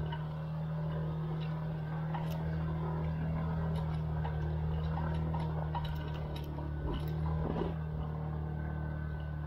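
Scooter engine running at a steady, unchanging pitch under load, with scattered sharp clicks and ticks over it.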